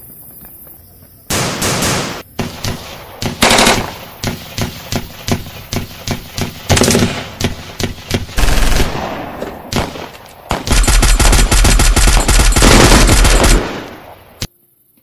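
Gunfire in a film shootout: scattered single shots and short bursts, then about three seconds of rapid automatic fire that cuts off sharply near the end.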